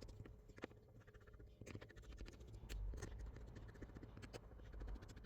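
Faint, scattered small clicks and scrapes of a precision screwdriver and small tools working on the phone's frame as its screws are taken out.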